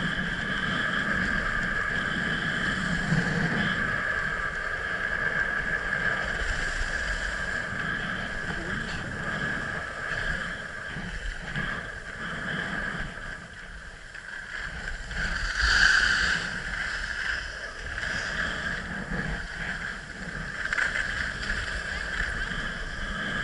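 Skis sliding and scraping over packed snow at speed, mixed with wind rushing past the camera, with a louder scrape about two-thirds of the way through.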